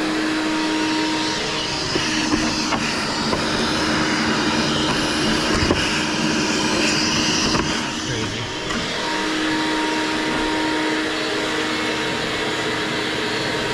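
Vacuum cleaner running steadily, a steady rushing noise with a faint hum, used to clear out a rat's nest. A few sharp knocks can be heard along the way.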